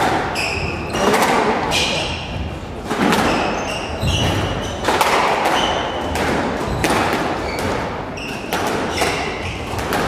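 Squash rally: a squash ball struck by rackets and slapping off the court walls about once a second, with short sneaker squeaks on the wooden floor between the shots, echoing in the court.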